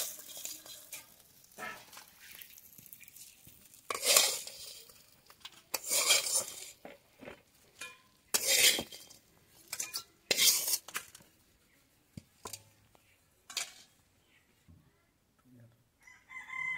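Metal spatula scraping and knocking against an aluminium wok and a steel plate as fried small fish are lifted out, in separate sudden strokes a second or two apart with quiet between.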